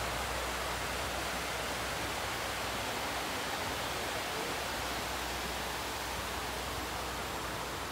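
Steady rush of water pouring down a concrete dam spillway into the pool below.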